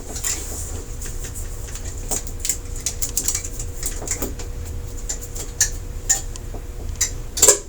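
Irregular light clicks and clatter of the TV's plastic diffuser and optical sheets being handled and lifted off the backlight panel, over a steady low hum. A louder burst of clicks comes near the end.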